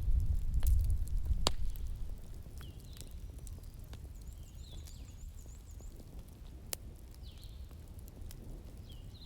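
Wood fire crackling in a fireplace, with a few sharp pops, over a low rumble of thunder that dies away in the first two seconds. Faint high chirps recur throughout.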